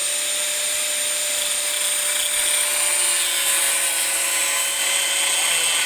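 Handheld electric power tool running steadily at speed: a constant motor hum with a strong high hiss.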